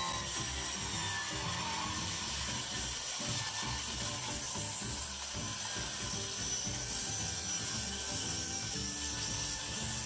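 Cordless reciprocating saw cutting through a wooden board, running steadily.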